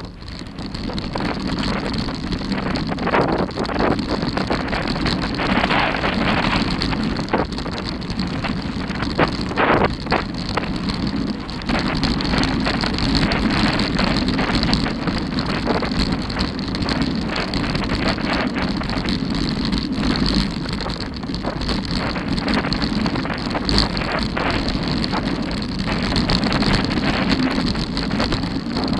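Mountain bike riding fast down a dirt and gravel trail: a steady rumble of tyres over the surface with wind on the microphone, and sharp knocks and rattles from bumps, most a few seconds in and around ten seconds in.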